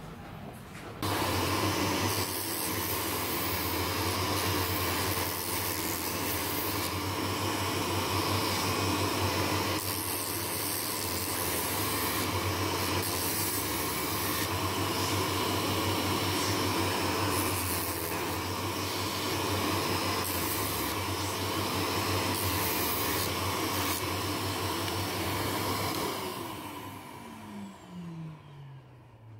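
Small bench-mounted spindle sander switched on about a second in and running steadily while the wooden table-tennis racket handle is held against its sanding drum to round it off. Near the end the motor is switched off and winds down, its hum falling in pitch as it coasts to a stop.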